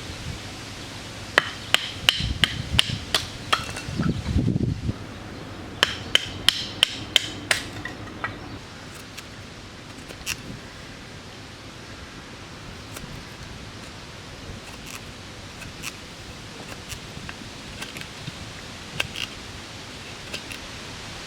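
Hammer driving a steel tent peg: quick, sharp blows with a metallic ring, in two runs of about half a dozen strikes each in the first eight seconds, then only scattered light taps.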